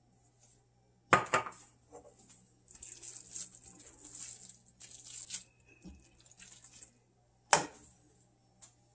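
Spatula stirring spaghetti squash in a nonstick skillet: soft scraping and rustling of the food against the pan from about three to seven seconds in. Two sharp knocks on the pan, one about a second in and a louder one near the end.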